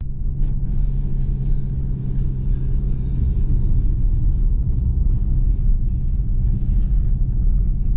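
Car driving along a road, heard from inside the cabin: a steady low rumble of engine and tyre noise with a constant engine hum.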